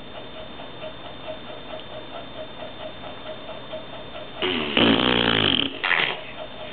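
A person making raspy, snore-like noises with the mouth: one drawn-out noise starting about four and a half seconds in, then a short one about a second later. A faint regular ticking, about four ticks a second, runs underneath.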